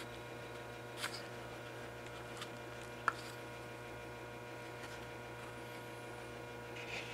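Steady electrical mains hum in a small room, with a few faint clicks about one and three seconds in as a plastic lawnmower air filter cover is handled.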